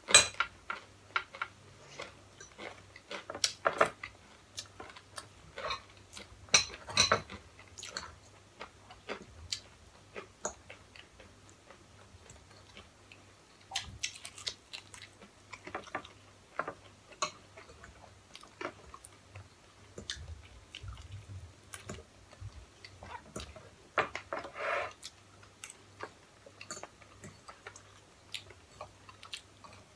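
Close-up sounds of two people chewing and biting into fried chicken and noodles, with scattered sharp clicks and taps.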